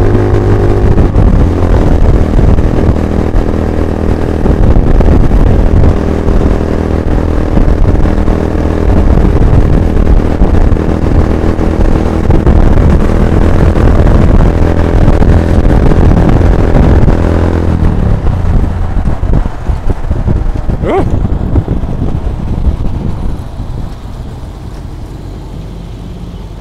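Honda Grom's small single-cylinder engine running under way, with wind rush on the microphone and the pitch shifting with the throttle. About eighteen seconds in the engine note falls away as the bike slows, a brief rising-and-falling squeal comes a few seconds later, and the sound settles much quieter near the end.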